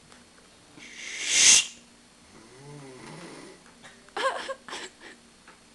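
People snoring in their sleep: a loud, rasping snore peaking about a second and a half in, a lower, drawn-out snore around three seconds, and a short, higher-pitched wheezing snort a little past four seconds.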